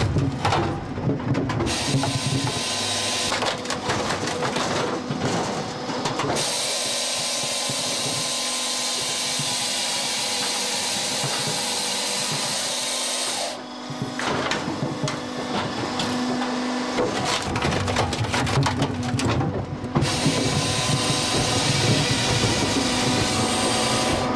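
Firewood processor running: split wood knocking and clattering through the splitting wedge and along the conveyor over a steady machine hum. For about seven seconds in the middle a saw cuts steadily through a log.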